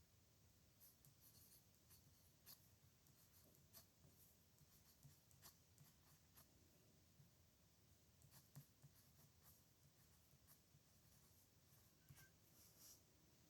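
Pen scratching faintly on paper in short, irregular strokes, with a few sharper ticks as the tip touches down.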